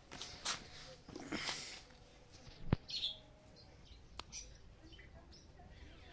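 Camera being handled and set in place: rustling and knocks, with one sharp click about halfway through and a lighter click later. A short bird chirp comes just after the sharp click.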